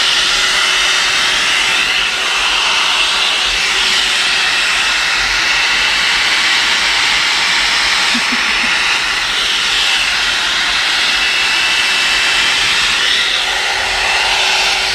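One Step hot-air brush hair dryer running steadily: a loud rush of blown air over a faint motor hum, its higher tones swelling and dipping every few seconds.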